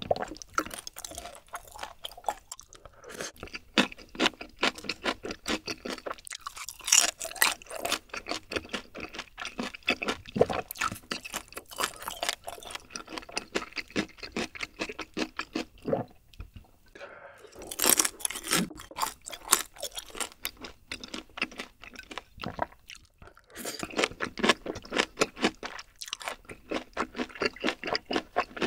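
Close-miked ASMR chewing of black bean sauce noodles and chewy beef large intestines: wet, sticky mouth sounds and smacks in quick succession, broken by a few short pauses.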